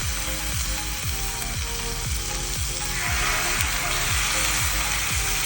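Chicken sizzling on a hot Blackstone flat-top griddle greased with ghee, the sizzle getting louder about three seconds in, under background music with a steady beat.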